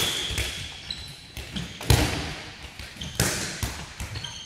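Handballs thudding on the sports-hall floor and against the goal during a shooting drill, the loudest impact about two seconds in, with short high sneaker squeaks, all echoing in a large hall.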